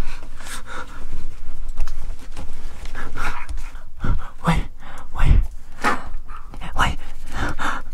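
A person breathing hard in loud, ragged pants, about one or two a second, some of them voiced.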